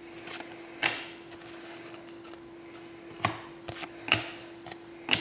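A few light taps and clicks of trading cards being handled and set down on a tabletop, about five, spread irregularly, over a faint steady hum.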